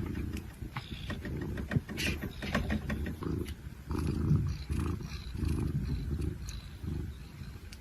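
An animal's low rumbling in repeated pulses, each lasting about half a second to a second.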